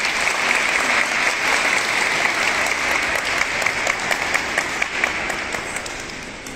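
Crowd applauding: many hands clapping in a dense patter that dies away near the end.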